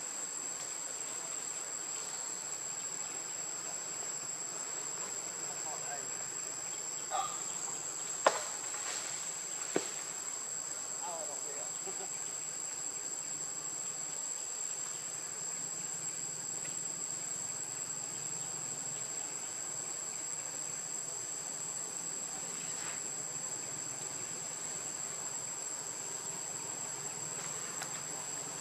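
Steady, high-pitched drone of insects (crickets or cicadas) in the forest, unbroken throughout. Two sharp clicks stand out about eight and ten seconds in.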